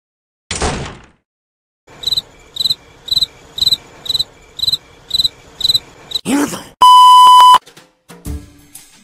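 Cricket-chirping sound effect, about two chirps a second for some four seconds, the stock gag for an awkward silence. It is followed by a loud, steady bleep tone lasting under a second, the loudest sound here; a brief whoosh comes near the start.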